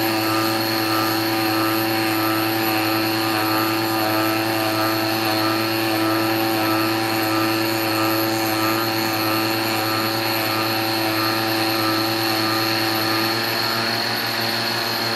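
Stepper-motor-driven rose engine lathe making an ornamental cut, its belt-driven overhead-drive cutter spinning against the workpiece. A steady machine whine with several constant tones.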